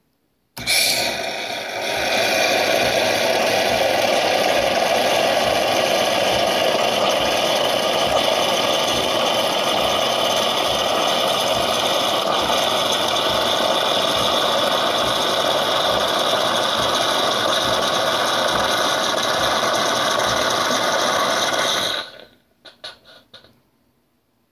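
Oster PrimaLatte II espresso machine frothing cold milk: the pump runs and steam hisses steadily as frothed milk spurts from the spout into a glass mug. It starts about half a second in and cuts off near the end with a few last sputters.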